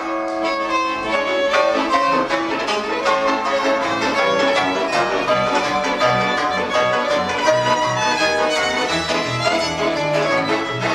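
Instrumental folk music led by a fiddle, with string accompaniment over a steady pulsing bass beat.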